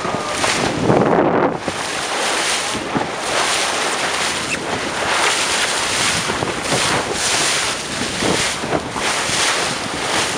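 Wind buffeting the microphone over water rushing and splashing along the hull of a moving boat, swelling and fading every second or so.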